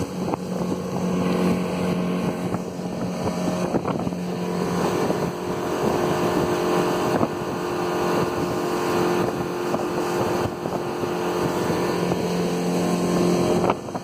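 115 hp Mercury four-stroke outboard running steadily at planing speed, over the rush of water along the hull and wind across the boat.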